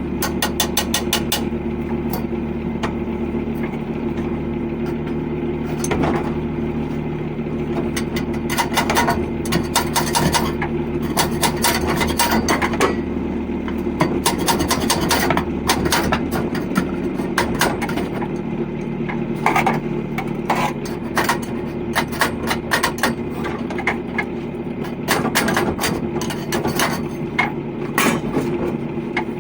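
Irregular tapping, knocking and scraping on metal, typical of fitting a coupling onto copper pipe, over a steady machine hum.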